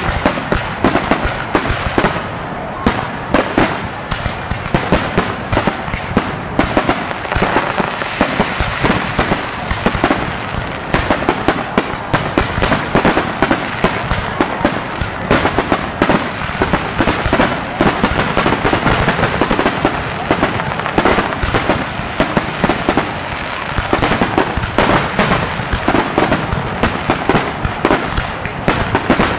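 Aerial fireworks shells bursting in a dense, unbroken barrage, many bangs in quick succession with no pause.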